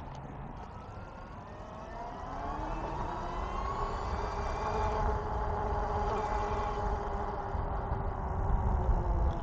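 Electric e-bike motor whining, its pitch rising as the bike accelerates, then holding steady at speed, over a constant low rumble of wind on the microphone.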